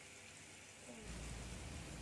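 Faint sizzling of a tempering frying in hot oil in a pan. It is almost silent for the first second, then the steady hiss comes back.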